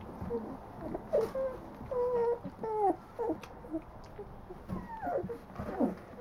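Two-week-old puppies whimpering and squeaking: a string of short, high cries that slide up and down in pitch, several at once in places.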